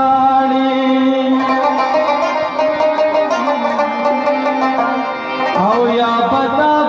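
Live Pashto folk music: a held, wavering melody line over a plucked string instrument, with the melody sliding upward a little after five seconds in.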